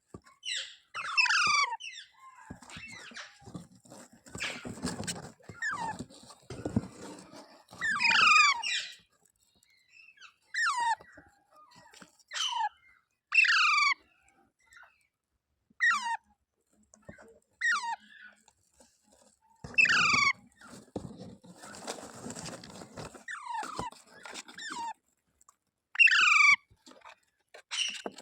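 A pet parrot giving a series of short, loud, high screeching calls, each falling sharply in pitch, about a dozen at irregular gaps of one to three seconds, with some rustling between them.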